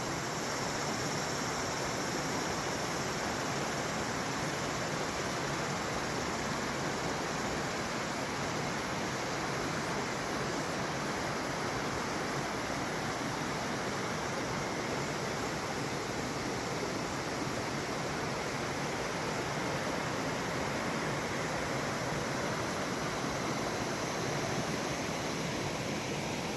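Mountain valley stream rushing, a steady unbroken water noise.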